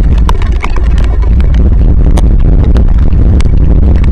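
Heavy rain hitting the nest camera and its microphone: a loud, steady low rumble with a dense spatter of sharp drop ticks.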